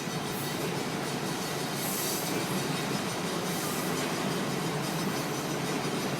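Freight train of tank cars rolling past, a steady noise of steel wheels on the rails, with a brief high hiss twice.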